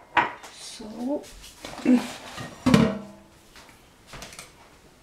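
Kitchen clatter of dishes and pans being handled: a few sharp knocks, the loudest about halfway through, which leaves a short metallic ring.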